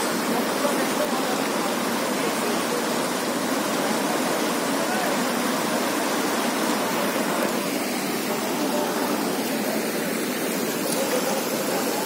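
Mountain stream running fast over boulders in small white-water cascades: a steady, even rush of water.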